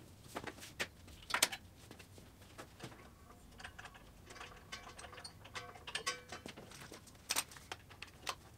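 Irregular clicks, taps and clanks from welding gear being handled and set up: the MIG welder's gun and leads, the gas cylinder's regulator, and the cables on the concrete floor. There are louder knocks about a second and a half in and again near the end.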